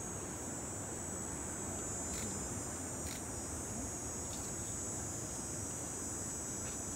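Steady, high-pitched chorus of night insects, with a few faint short clicks.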